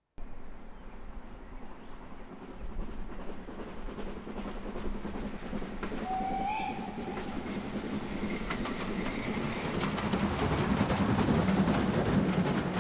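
Steam train running along the line, its wheels clattering over the rail joints, growing louder towards the end. A short whistle sounds about six seconds in.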